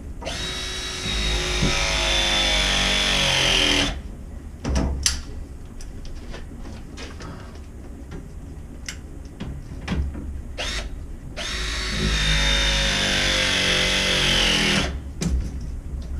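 A cordless power tool's motor runs in two bursts of about four seconds each, its whine sinking steadily in pitch as it slows under load. Light clicks and knocks come in between.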